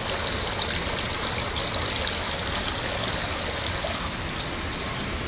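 Water running steadily in a small spa pool, a continuous trickling sound without a break.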